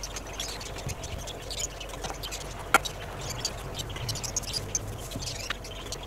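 Wooden boards being handled and laid on a timber frame: light knocks and scrapes, with one sharp knock a little under three seconds in. Faint high squeaks and chirps come and go in the background throughout.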